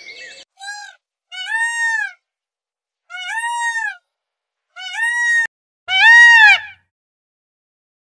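Indian peafowl (peacock) calling: five loud calls spaced about a second apart, each rising and then falling in pitch. The first is short and the last two are the loudest.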